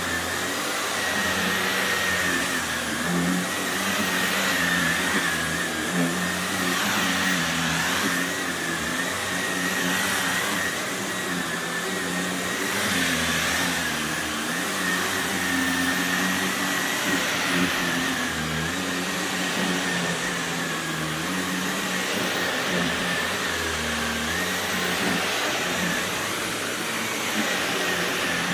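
Upright vacuum cleaner running steadily with a high motor whine, pushed back and forth across a low-pile rug and hardwood floor, the sound swelling and easing with each stroke every couple of seconds.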